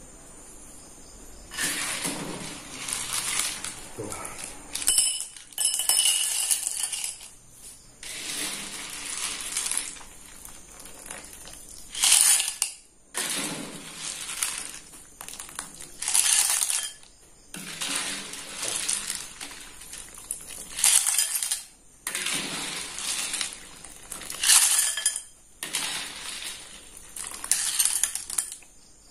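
A ladle scooping freshly cooked snail and taro curry out of a pot again and again, about a dozen scoops, each lasting a second or two, with a few sharp clinks of metal on cookware.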